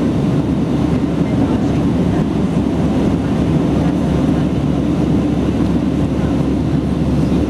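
Steady cabin noise inside an Airbus A319 climbing after take-off: the engines and the airflow over the fuselage make an even, low rushing drone that does not change.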